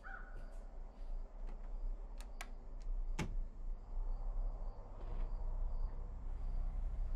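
Quiet indoor ambience: a steady low hum with faint repeated high chirps, broken by a few sharp clicks between about two and three seconds in.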